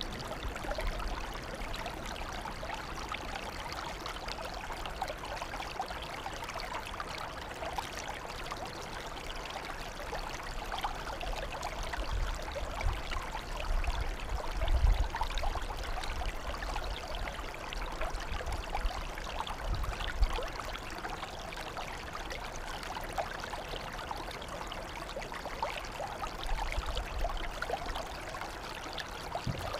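Water flowing and trickling steadily, a continuous running-water sound with a few low rumbles, the strongest about halfway through.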